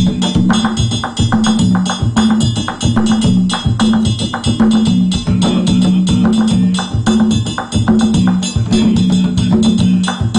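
Live Afro-Caribbean percussion ensemble playing a fast, dense rhythm: hand drums with sharp wooden-sounding strikes over a repeating low note.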